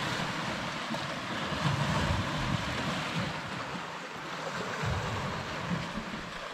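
Small sea waves washing over the boulders of a rocky shore, with gusts of wind rumbling on the microphone.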